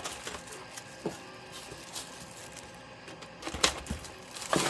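Small hand tools and their packaging being handled, making a few light clicks and knocks, with a couple of sharper clicks near the end.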